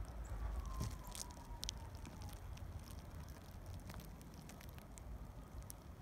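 Faint outdoor winter ambience: a steady low rumble, with a faint tone sliding slowly down in the first two seconds and a few short, sharp high clicks.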